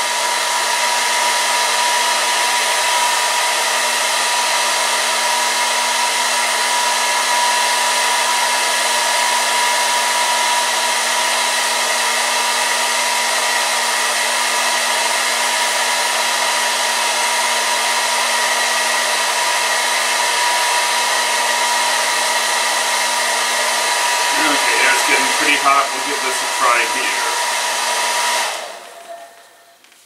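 Hair dryer running on high, blowing hot air into a plastic garment bag: a steady rushing blow with a constant hum. It is switched off shortly before the end and the sound dies away.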